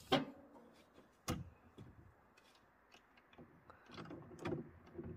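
Ratchet mechanism on a boat trailer's bow strap being worked by hand to release the boat for launching: a sharp metallic click at the start and another about a second in, then a run of clicks and clunks near the end.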